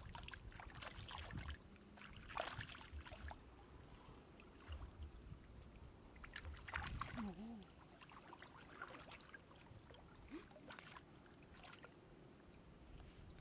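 Faint splashing and sloshing of shallow water, with scattered small splashes and drips as someone wades and dips their hands in to pick things out.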